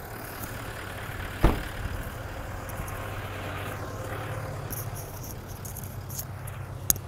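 A vehicle engine idling with a steady low hum, and a single sharp click about a second and a half in.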